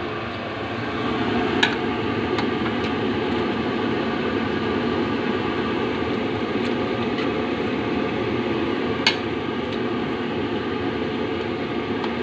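Steady rushing noise of a wok of noodle broth cooking over a gas burner, with a metal ladle clinking against the wok. There are two sharp knocks, about a second and a half in and again about nine seconds in, and a few lighter taps.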